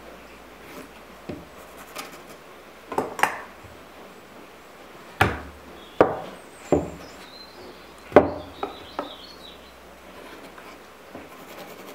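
About eight sharp wooden knocks and clicks, most of them in the middle of the stretch, as a marking knife, a steel square and a beech board are handled and set down on a wooden workbench during marking out.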